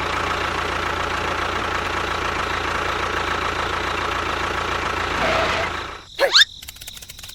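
Small engine running steadily, stopping about six seconds in. It is followed by a brief rising-and-falling whistle.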